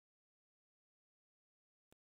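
Near silence: the sound track is muted, broken only by one brief, faint click near the end.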